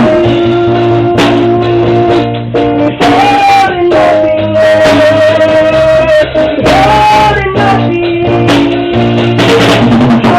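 Live church worship music: a band with guitar and drums playing, with held sung notes.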